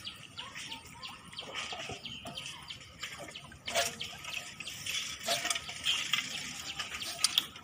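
Water splashing and dripping in many small, irregular splashes around a bamboo lift net (bel jal) being worked in the river.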